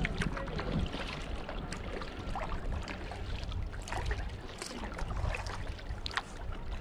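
Kayak paddling on calm water: paddle blades dipping in, with small splashes and drips falling off the blades at uneven intervals, over a steady low rumble.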